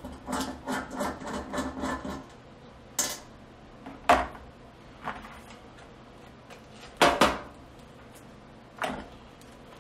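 Socket ratchet clicking quickly, about four clicks a second for two seconds, as it turns a gas burner orifice loose. It is followed by a few separate knocks and clicks as the tools and small parts are handled and set down.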